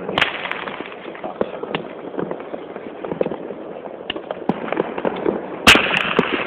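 Scattered crackles and pops of fireworks, then, about five and a half seconds in, a firework fountain ignites with a sudden loud burst and keeps spraying sparks with a dense, steady rush.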